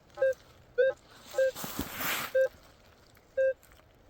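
Metal detector giving repeated short beeps of the same pitch as the coil is swung back and forth over a buried target, here a shotgun shell that rings up in the nickel range. A brief rustle comes in the middle.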